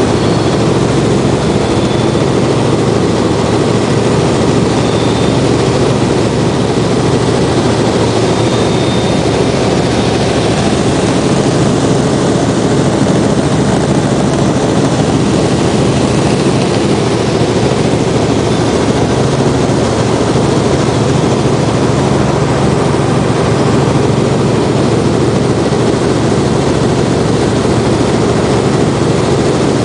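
Robinson R44 Clipper II helicopter in flight, heard from inside the cabin: its six-cylinder Lycoming piston engine and rotor running steadily at cruise power. The noise is loud and even.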